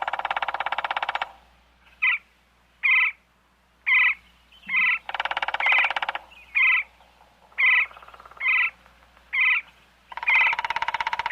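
A bird calling: a long, rapid rattling call given three times, with short, sharp single notes repeated between the rattles.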